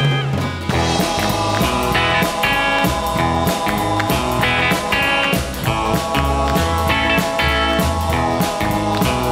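Background music: a rock-blues track with electric guitar and a steady beat.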